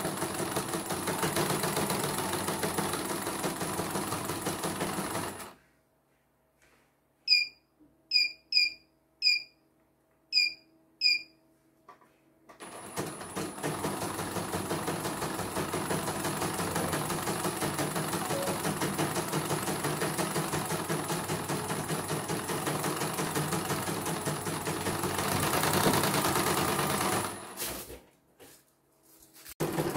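CNY portable computerized embroidery machine stitching, its needle mechanism running in a fast, even rhythm with a faint high whine. It stops about five seconds in. During the pause come six short electronic beeps. Stitching resumes after about twelve seconds, stops again briefly near the end, and restarts.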